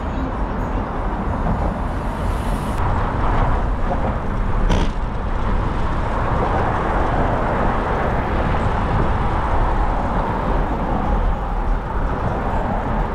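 Steady road-traffic noise mixed with low wind rumble on the microphone of a moving bicycle, with one sharp click about five seconds in.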